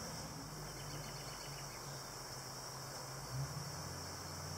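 Honeybees buzzing around an open hive: a steady low hum, with a steady high hiss over it.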